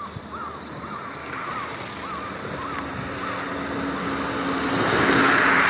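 A road vehicle passing, its engine hum and tyre noise building to loudest near the end. In the first two seconds a run of short calls repeats about twice a second, then fades.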